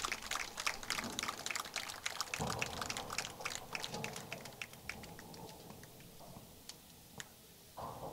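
Scattered applause from a small crowd, separate hand claps that thin out over a few seconds until only a few lone claps are left near the end.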